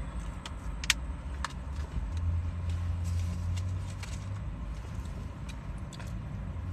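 Low car rumble that swells for a couple of seconds about two seconds in. Scattered small clicks and crackles come from a paper food bag being handled and food being eaten.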